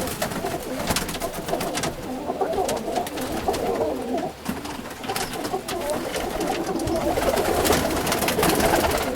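Many domestic pigeons cooing together in a loft, a continuous overlapping chorus of coos with scattered sharp clicks.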